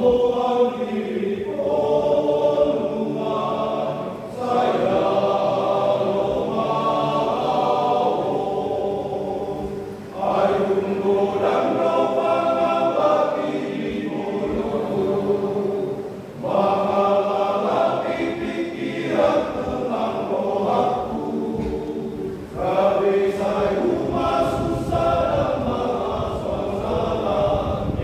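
Men's church choir singing together, in long phrases of about six seconds with short breaks between them.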